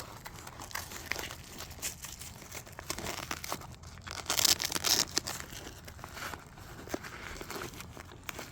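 Nylon fabric and straps of a plate carrier's side flank rustling and scraping as a ceramic side plate is worked into it by hand. About four and a half seconds in there is a louder scratchy ripping stretch.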